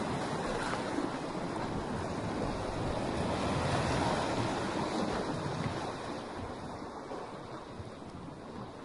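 Shallow sea surf washing in over a cluster of shoreline rocks and swirling back through them, a continuous wash of water. It swells about four seconds in and eases off toward the end.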